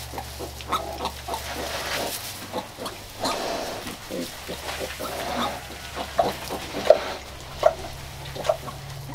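Pig grunting during farrowing: short, separate grunts that come about once a second in the second half, with straw rustling as a newborn piglet is rubbed down.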